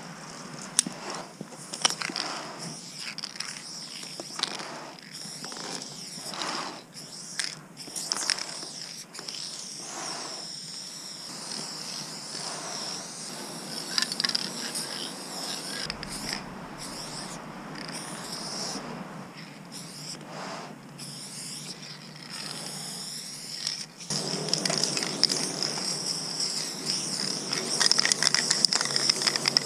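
Aerosol spray-paint can hissing in bursts, among scattered clicks and knocks; louder and more continuous for the last few seconds.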